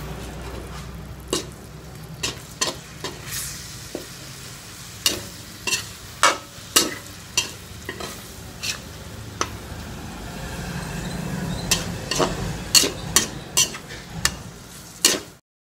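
Metal spatula stirring and scraping eggplant around a steel wok, with irregular sharp clinks against the pan, over a sizzle from the still-hot wok after the gas is turned off. The sound cuts off abruptly just before the end.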